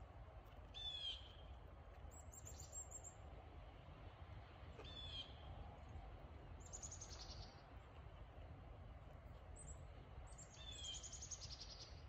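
Small wild birds chirping faintly, in about six short runs of quick, high repeated notes, the loudest about a second in and near the end, over a faint low outdoor rumble.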